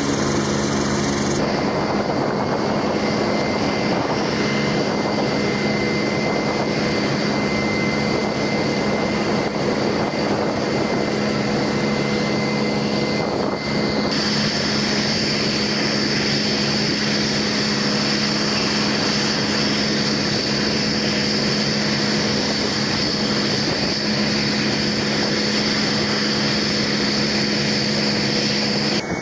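B-1B Lancer's jet engines running at ground idle: a steady roar with a constant low hum, and a high turbine whine that grows much louder about halfway through.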